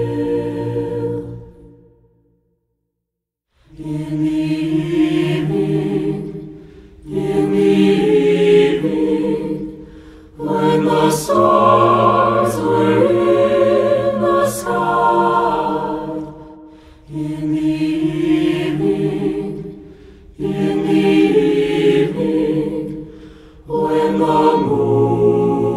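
Mixed SATB choir singing a cappella in full chordal harmony, in phrases a few seconds long with short breaks between them, and a full stop of about a second and a half near the start.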